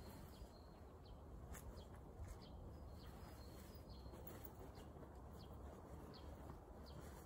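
Faint bird chirps: short high notes scattered about once a second, over a low steady rumble.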